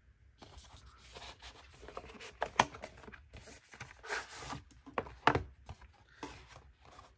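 Paperboard packaging rubbing and scraping as a box's inner tray is slid out of its cardboard sleeve, in several short strokes with a few sharp taps.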